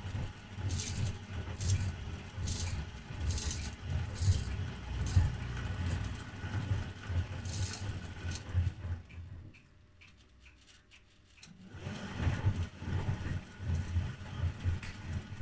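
1968 Scharpf Elektronica 2920 washing machine in its wash cycle: motor and drum running with an uneven low rattle, which the owner puts down to the magnetic clutch's counterweight freewheel, and laundry and water swishing in the drum about once a second. About nine seconds in the drum stops for a few seconds, then starts turning again.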